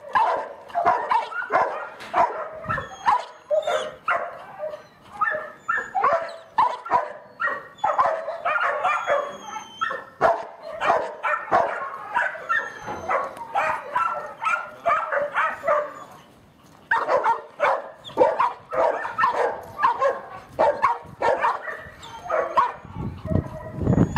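Dog barking rapidly and repeatedly, several short barks a second, with a brief pause about two-thirds of the way through.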